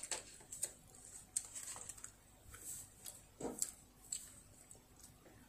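Faint, scattered light clicks and taps of tableware being handled at a dining table, with one somewhat louder knock about three and a half seconds in.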